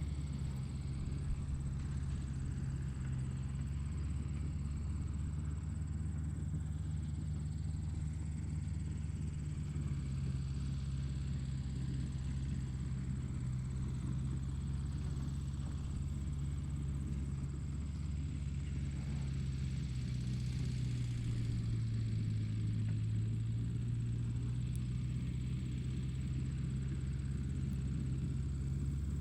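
Steady low drone of a motor vehicle on the move, its pitch shifting slightly about ten seconds in and again about twenty seconds in.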